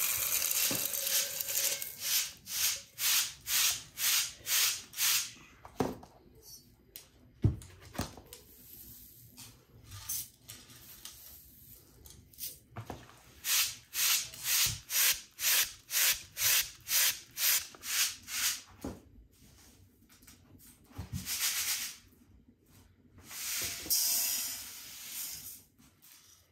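Dried corn kernels poured into an enamel bowl with a rushing rattle, then wheat grains shaken back and forth in a bentwood sieve, swishing about twice a second in runs of several seconds. Grain is poured again near the end.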